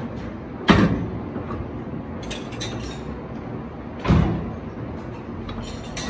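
Hand-operated screw press with a long swing bar, its screw and die coming down in two heavy metal knocks about three and a half seconds apart. Lighter metal clicks and clatter come between the knocks.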